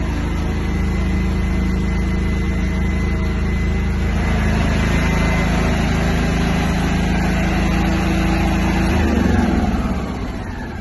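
5 kVA petrol generator set running steadily, then switched off about nine seconds in, its engine note falling as it runs down.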